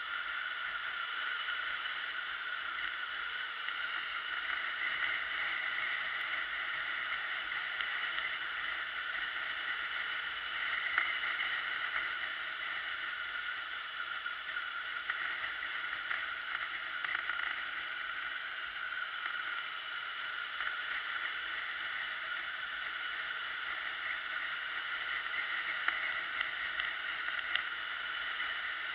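Steady, thin rushing noise of a motorcycle riding along at road speed: wind, road and engine noise picked up by a camera mounted on the bike, with no bass and a few small ticks.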